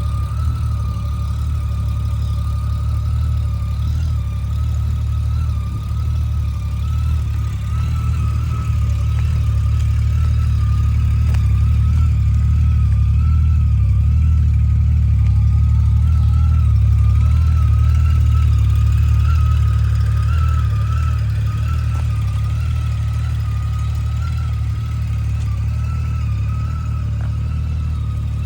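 Honda Gold Wing GL1500SE's flat-six engine running with a steady low rumble, and a thin wavering whine above it.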